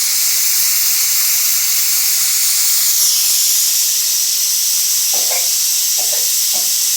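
Pressure cooker on the stove hissing steadily and high-pitched as it vents steam through its valve, a sign that it is at full pressure with the water boiling inside.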